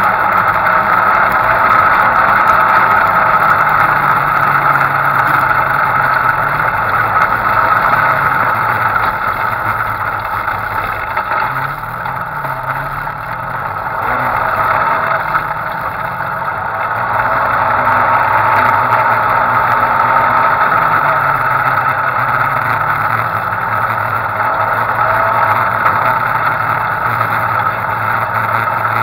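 Engine of an off-road side-by-side running as it drives over dirt, the revs rising and falling. It eases off about halfway through, then picks up again.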